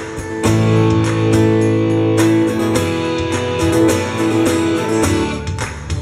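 Live acoustic guitar strumming the intro of a rock song. A full chord rings out from about half a second in to about five seconds, then choppier strums follow.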